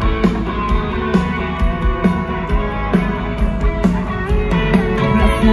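Live band playing an instrumental passage: guitar and keyboard over a steady drum beat, heard loud through an arena sound system.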